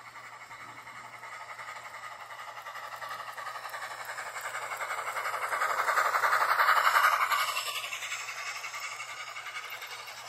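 HO scale model freight train rolling past on sectional track, its wheels rattling and clicking quickly along the rails. It grows louder to a peak about six to seven seconds in as the Santa Fe 2-10-4 steam locomotive model and its tender pass close by, then fades as the hopper cars follow.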